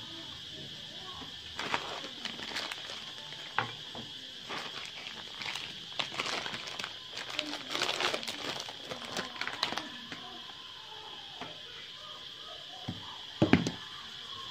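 Plastic packaging crinkling and tearing as a pack of sausages is pulled open by hand, after a few light knocks of a knife on a wooden chopping board. A heavier thump comes near the end, over a steady high-pitched hiss.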